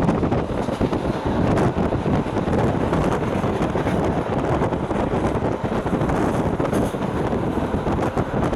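Running noise of a RIB commuter train in motion, a steady rumble and rush with wind buffeting the microphone.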